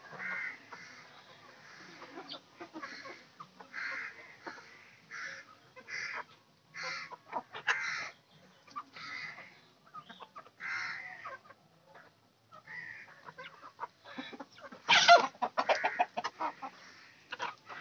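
Free-range desi (country) chickens clucking, with short calls repeated every half second to a second and a brief lull in the middle. About fifteen seconds in comes a louder, denser burst of calls.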